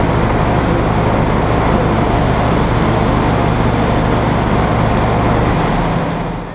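Steady rumble and hum of a train's engine running at a station platform. It fades out near the end.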